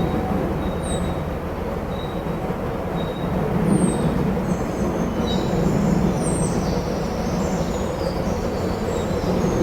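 Steady low rumble of wind, with birds singing over it in short high chirps and thin repeated high notes.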